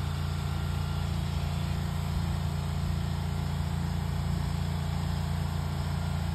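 A motor running steadily at idle, a constant low hum with no change in speed.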